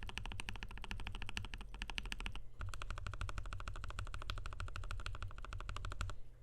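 Fast, continuous typing on a FiiO KB3 mechanical keyboard with lubed and filmed Gateron G Pro 3.0 Yellow linear switches, a stainless steel plate and polycarbonate keycaps. There is a brief break about two and a half seconds in, and the typing stops shortly before the end.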